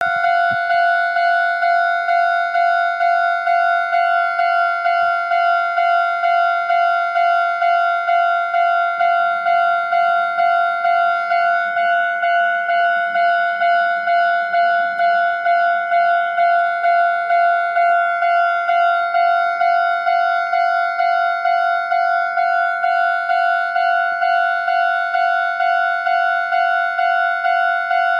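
Japanese railroad crossing alarm, an electronic bell sounding a steady ringing tone in even strikes of about two a second while the crossing is active.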